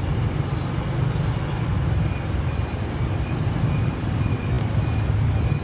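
Small motorbike's engine running as the bike rides off in city traffic, heard from the rider's seat, with a steady low rumble and road and wind noise.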